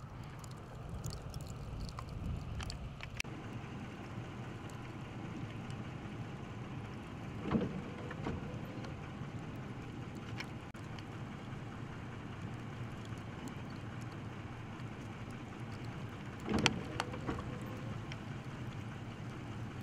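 Vehicle engines idling on a snow-covered road, a steady low rumble, with two brief louder noises about seven and a half and sixteen and a half seconds in.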